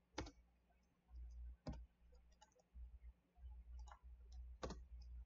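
Computer mouse clicking as knife-tool cut points are placed: three sharp clicks spread over a few seconds, fainter ticks between them, and a faint low hum underneath.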